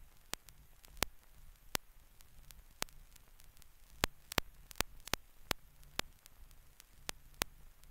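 Faint hiss and low hum with irregular sharp clicks and pops scattered throughout: the surface noise of an old film soundtrack carrying no recorded sound.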